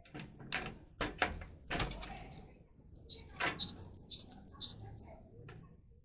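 Domestic canary giving quick runs of short, high chirps, about five notes a second, some paired at two pitches. A few brief scuffs or flutters come in the first two seconds.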